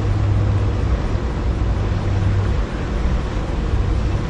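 Steady low rumble of water churning out of the hydroelectric dam's turbines, a constant low hum under a rush of water.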